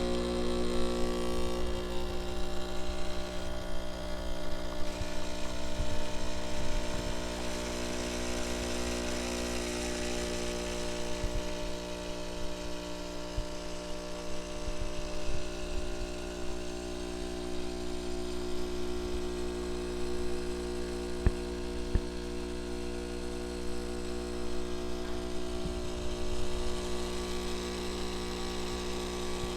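Breville Barista Express BES870XL espresso machine's vibratory pump buzzing steadily while pulling a double shot. Two short sharp ticks come about two-thirds of the way through.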